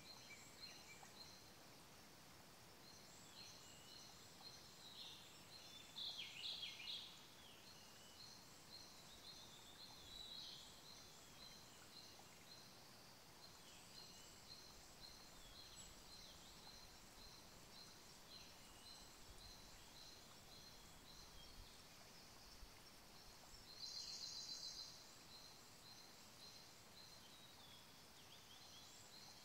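Faint forest birdsong: thin, high notes repeat throughout, and a louder rapid trill comes about six seconds in and again near the end. Under it runs the faint steady hush of a small stream.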